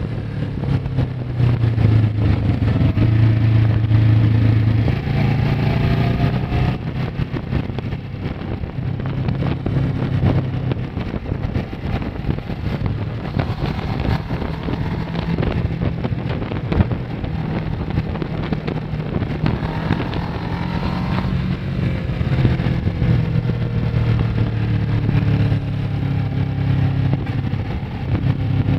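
Kawasaki ER-6n's 649 cc parallel-twin engine running on the move, its note climbing under throttle and dropping back at gear changes several times.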